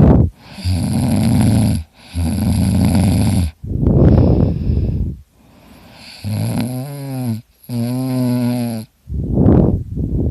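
A person snoring loudly: a quick run of harsh, rattling snores about a second and a half each, taken on breath after breath with barely a pause; two of them around the middle turn into a pitched, wavering drone.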